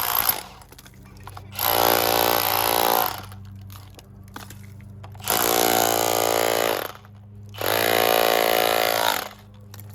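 Power chipping hammer knocking old plaster stucco off a stone wall. It runs in three bursts of about a second and a half each, with short pauses between them, and the tail of an earlier burst ends just after the start.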